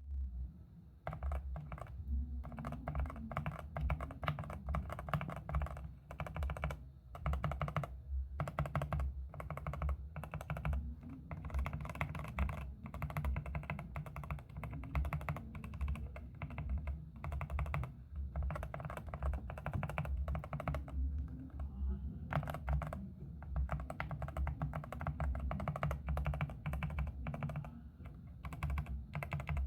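Rakk ILIS mechanical keyboard with red linear switches being typed on quickly and continuously, a dense run of key clacks with a low thock under each stroke and a few short pauses. The uploader finds the keyboard a little pingy.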